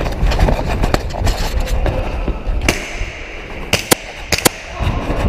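Handling noise from a head-mounted action camera knocked loose: heavy rumbling and rubbing right on the microphone, with several sharp cracks in the second half.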